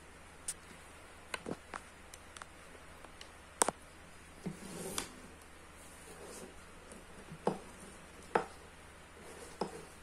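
Scattered light clicks and taps from electrical wires and panel parts being handled by hand, the sharpest click about three and a half seconds in.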